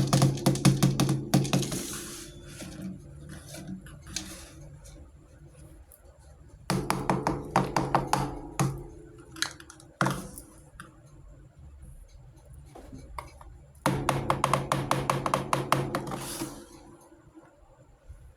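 Small plastic toy kitchen pieces being handled and clattering, in three bursts of rapid clicking.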